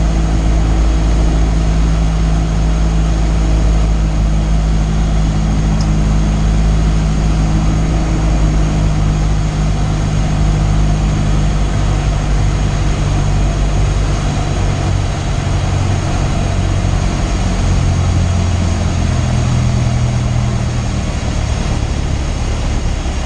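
Cessna 172's piston engine and propeller droning steadily on final approach, with the engine note dropping lower about two-thirds of the way through as power comes back for landing.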